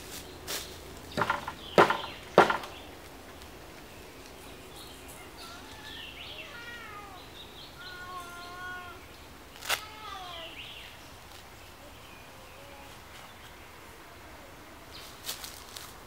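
Sharp knocks of a hatchet striking wood: three, about half a second apart, just after the start and one more midway. Faint high, wavering calls sound in the background between them.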